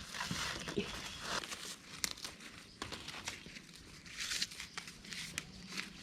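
Dry corn leaves and husks rustling and crackling as stalks are handled in hand harvesting, with bursts of rustle around the start and about four seconds in and several sharp snaps in between.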